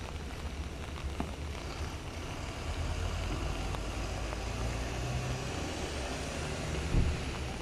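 Outdoor noise of rain and road traffic with a low rumble, swelling about two and a half seconds in as a vehicle goes by. There is one short thump near the end.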